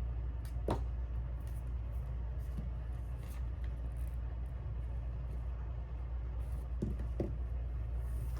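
A steady low hum with a few light clicks: one about a second in and two close together near the end.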